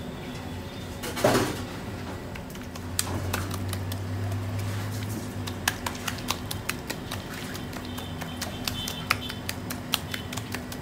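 A knock about a second in, then a run of light, irregular clicks and taps from an aluminium baking tray on a stone counter as hands press shaped pastries flat in it. A steady low hum runs underneath.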